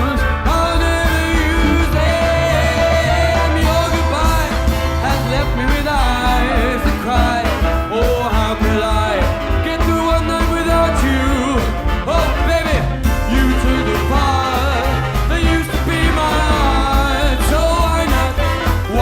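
A band playing an up-tempo rock-and-roll-style number, with a steady bass line under a bending lead melody.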